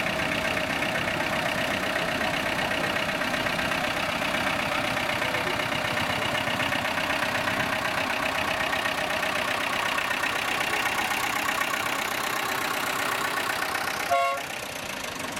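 A vintage MAN Ackerdiesel tractor's diesel engine running steadily. Near the end comes a short horn toot.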